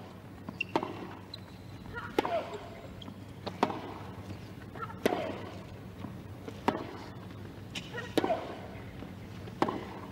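Tennis ball struck with rackets in a baseline rally on a hard court, about seven hits roughly a second and a half apart, with a player's grunt on some of the shots.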